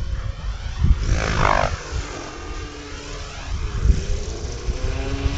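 RC model helicopter flying aerobatics, its motor and rotor pitch sweeping up and down as it manoeuvres overhead, with wind rumbling on the microphone.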